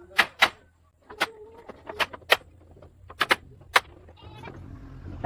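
Hammer blows, a dozen or so sharp strikes in uneven pairs, over a low steady hum. A short animal bleat sounds about a second in.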